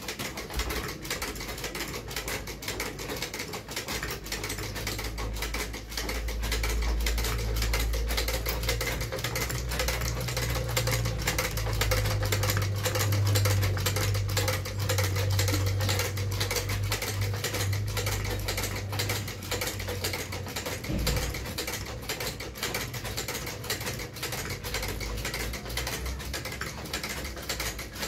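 Shoe-repair leather sewing machine stitching a shoe sole, its needle running in a rapid, steady clatter. A low hum lies under it for much of the time.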